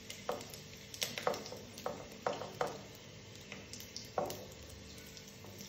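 Fenugreek, cumin and carom seeds sizzling in hot oil in a kadhai as they are tempered, with several sharp crackles and pops scattered through the sound.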